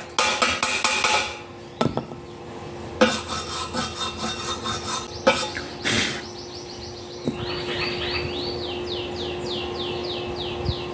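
Steel wire brush scrubbing across a fresh E6013 stick weld, with a few sharp metal knocks like a chipping hammer freeing slag. From about seven seconds in, the scraping gives way to a steady hum and a quick series of repeated chirps.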